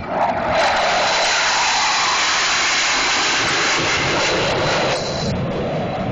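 Blue Angels F/A-18 Hornet jet passing the crowd, a loud rushing jet noise with a steady high whine that drops back after about five seconds.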